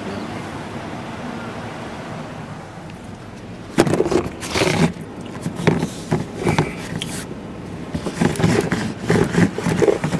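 Steady hum of an idling car heard inside the cabin. About four seconds in, loud knocks and rubbing of the camera being handled and turned around, with more handling bumps near the end.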